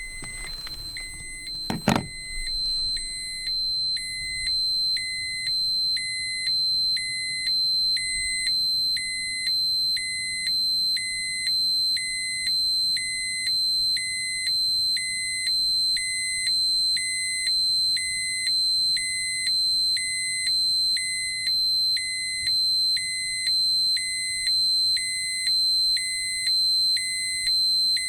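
Electronic radiation dosimeter alarm: a steady high tone with a lower beep pulsing evenly just over once a second, the warning that a set dose or dose-rate limit has been passed. A sharp click sounds about two seconds in.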